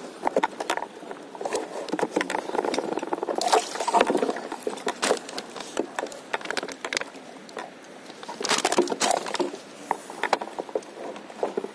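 Irregular knocks, clicks and rubbing from someone shifting about on an inflatable paddleboard and handling the phone that is recording, with two louder stretches of scraping, about three and a half and eight and a half seconds in.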